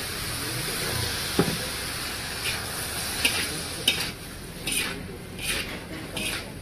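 Chow mein noodles sizzling in a large iron wok while a metal spatula scrapes and tosses them. Over the second half the scraping comes in regular strokes, a little under a second apart.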